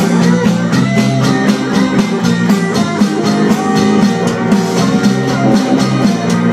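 Rock band playing: electric guitars over a drum kit keeping a steady beat.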